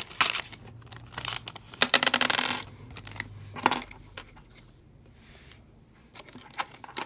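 Booster pack of Yu-Gi-Oh! Dice Masters being torn open and handled in a few short crinkly bursts, then small dice clicking together.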